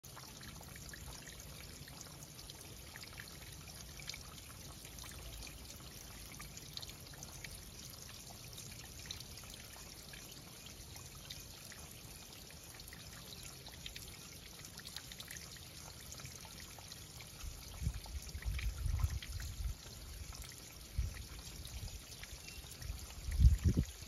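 Water trickling and dripping over a wet rock face: a steady faint trickle with small drip ticks. From about three-quarters of the way in, irregular low bumps come in, the loudest just before the end.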